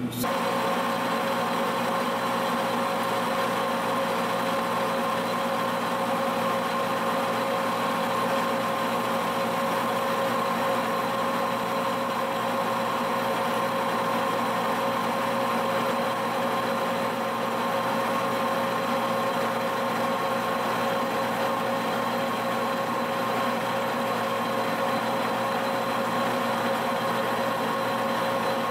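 Monarch engine lathe running under power, turning a steel spindle with a carbide tool taking a cut and breaking chips. The machine's drive gives a steady whine and hum that holds even throughout.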